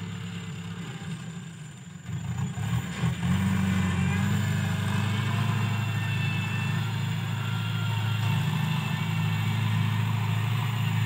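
New Holland TS90 tractor's diesel engine running while pulling a disc plough over sandy soil. It runs lower and unsteady for the first few seconds, then picks up about three seconds in and runs steady and louder.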